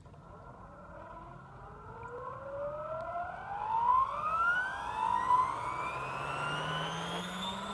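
Radio-controlled helicopter spooling up: a whine of several tones that rises steadily in pitch and grows louder, with loud swells about four and five seconds in, then holds near full speed.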